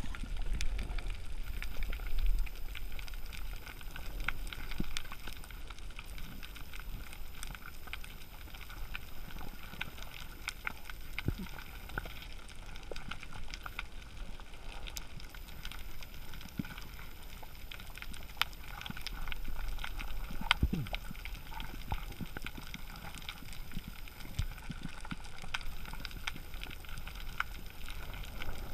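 Underwater coral-reef ambience: a steady crackling of countless tiny clicks, the typical sound of snapping shrimp, over a low rumble of water moving past the microphone.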